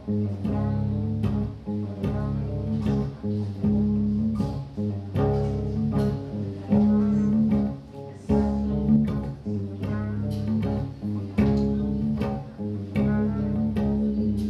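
Live electric guitar and electric bass jamming: plucked bass notes under a run of repeated guitar notes.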